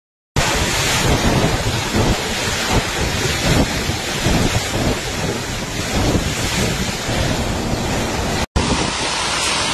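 Typhoon-force wind and driving rain, the gusts buffeting the microphone into a loud, rumbling rush. It breaks off for an instant about eight and a half seconds in, then carries on.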